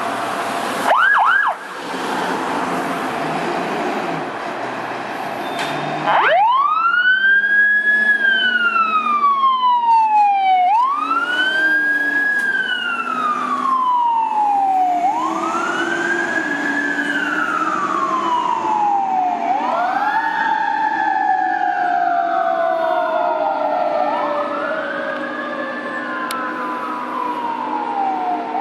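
Fire engine pulling out with its engine running and a brief double siren chirp about a second in. About six seconds in its electronic PA300 siren starts a slow wail, rising and falling about once every four seconds. From about twenty seconds a mechanical Federal Q2B siren joins, winding up and then slowly falling in pitch under the wail.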